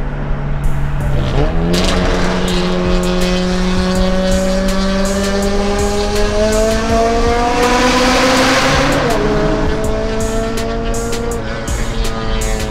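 Car engine accelerating hard on the highway. The revs jump up about a second and a half in, climb steadily, and drop at a gear change about nine seconds in before pulling again.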